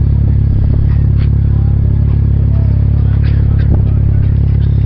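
MTX Jackhammer subwoofer in a car playing loud, steady deep bass.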